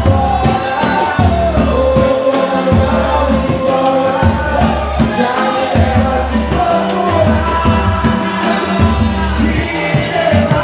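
A song with a lead voice singing over a steady bass and drum beat.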